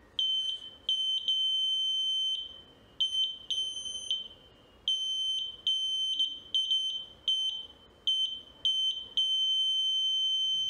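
VLF metal detector's buzzer beeping in a high tone, a dozen or so short and longer beeps at uneven intervals with a long beep at the end, as a screwdriver is moved near its search coil: the repaired detector is sensing metal.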